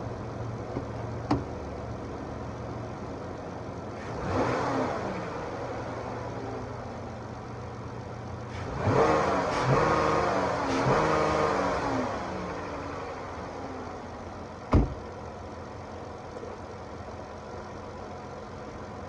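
2014 Caravan minivan's V6 engine idling and revved twice, a short blip and then a longer rev that rises and falls back to idle. A single sharp knock sounds near the end, louder than the engine.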